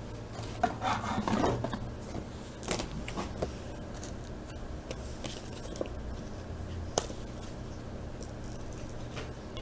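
A trading card being worked into clear plastic sleeves and a rigid top loader: soft plastic rustling and scraping, with a few light clicks.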